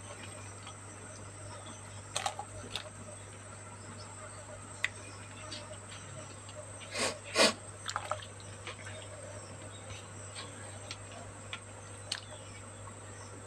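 Pieces of raw patin catfish dropped by hand into a pot of boiling tom yam broth: scattered small splashes and clicks, the loudest a pair about seven seconds in, over a low steady hum.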